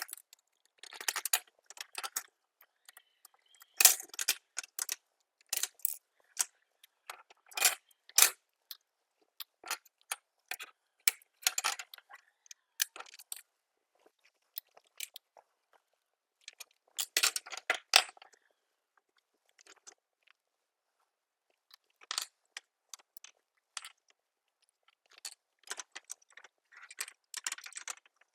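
Irregular clicks, taps and light rattles of hard plastic parts and small screws being handled as a plastic Nerf blaster is taken apart. There is a denser run of clicks about two-thirds of the way through.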